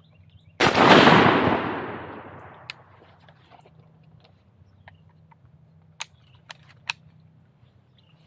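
A single shotgun blast at ducks, about half a second in, its echo rolling away over about two seconds. Later come a few sharp clicks.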